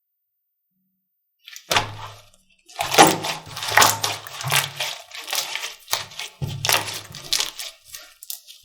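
Slime being squeezed and poked close to the microphone, giving bursts of crackly popping and clicking that begin about a second and a half in.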